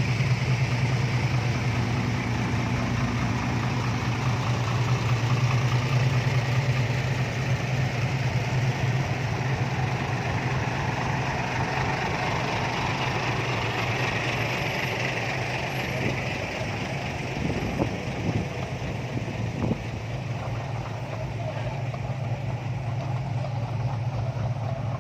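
Heavy diesel engine idling steadily, with a few light knocks about two-thirds of the way through.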